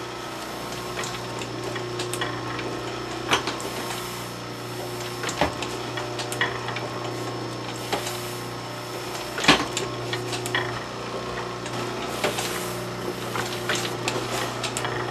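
Motor-driven platen letterpress running with a steady hum, its mechanism clacking every second or two as it cycles, with a few louder knocks and the rustle of paper sheets being fed and taken off.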